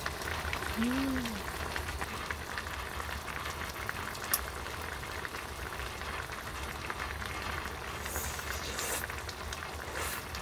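Pot of mala hot pot bubbling steadily on a camping stove. A single light clink of a utensil comes about four seconds in.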